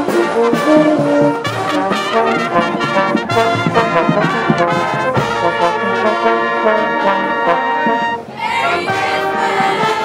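Brass band music, trombones and trumpets playing a melody together, with a short break and sweep in the music about eight seconds in.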